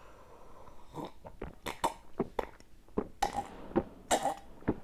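A man gulping fizzy cola from a glass mug, close to the microphone: an irregular run of swallowing gulps with wet mouth clicks, starting about a second in.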